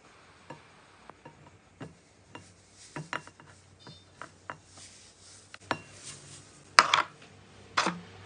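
Slime being handled, making irregular sticky clicks and pops, with two louder pops near the end.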